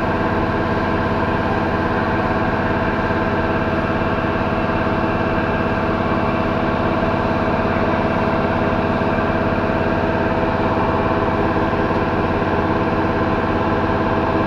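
A machine running steadily: a constant drone with several fixed tones that holds unchanged throughout.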